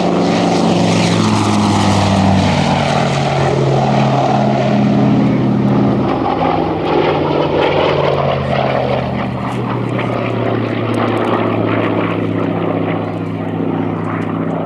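Hawker Sea Fury's Bristol Centaurus Mk.18 18-cylinder sleeve-valve radial engine and its AD-4 Skyraider propeller at high power in a low pass and climb, loud and continuous. The engine's pitch steps lower about six seconds in and again near eleven seconds as the aircraft passes and climbs away.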